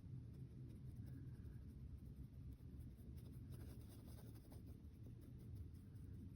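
Faint scratchy strokes of a paintbrush working on a painting surface, most noticeable around the middle, over a low steady hum; otherwise near silence.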